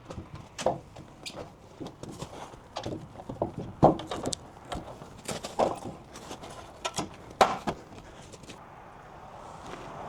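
Irregular knocks, taps and clicks of hands-on work at a doorway, with two sharp loud knocks about four and seven and a half seconds in. A rush of wind noise swells up near the end.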